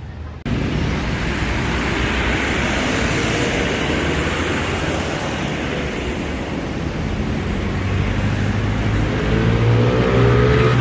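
Heavy road-vehicle traffic passing close by, a steady loud rush of engine and tyre noise. A rising pitched tone comes in near the end.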